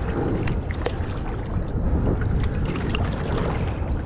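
Steady wind noise on the microphone over water lapping, with small drips and splashes from a kayak paddle.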